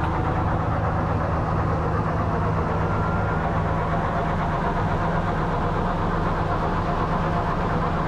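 An engine running steadily at a constant speed, under the continuous rush of cranberries pouring off the elevator onto the pile in a dump truck bed.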